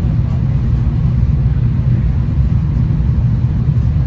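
Steady low rumble of a V/Line passenger train running along the track, heard from inside the carriage.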